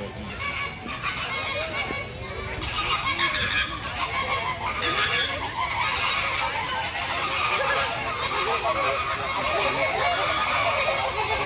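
A flock of water birds calling: many short, overlapping calls that grow louder about two and a half seconds in.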